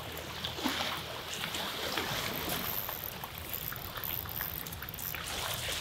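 Surf washing on the beach, with wind on the microphone and scattered light clicks.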